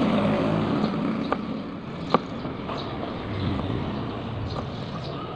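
Knife blade striking a cutting board while slicing shallots: a few sharp clicks, the loudest about two seconds in. Under it, a steady hum of road traffic, a little louder in the first second.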